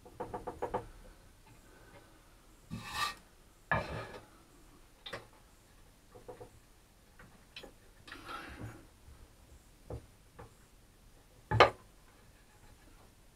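Handling noises of a plywood workpiece and small tools at an idle drill press: a quick run of clicks at the start, then scattered short scrapes and rubs of wood on the table, and one sharp knock near the end.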